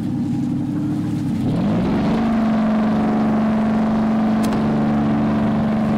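Diesel engines of an Army LCM-8 landing craft running close by while it docks. About a second and a half in, the pitch rises, then holds steady at the higher speed.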